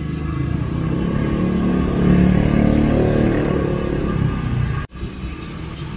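A motor vehicle running past close by: a low engine rumble swells to a peak about two seconds in, then fades. The sound drops out briefly near the end.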